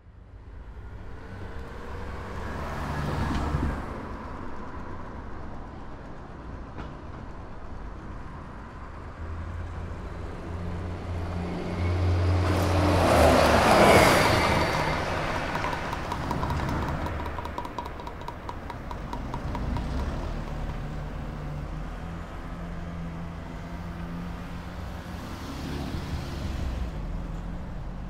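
Street traffic, with vehicles passing by over a steady low rumble. The loudest one swells up and sweeps past about halfway through, its pitch falling as it goes.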